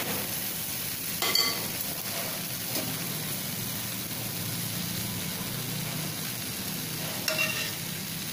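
Drops of besan batter sizzling steadily as they fry and puff up in hot oil, a test showing the oil is hot enough for frying boondi. A perforated metal skimmer knocks against the pan briefly twice, about a second in and near the end.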